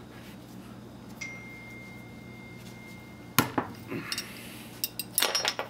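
Pliers and brass faucet fittings clanking and clinking as a brass connection is worked off: one sharp clank a little past the middle, a few lighter clicks, then a quick run of clinks near the end.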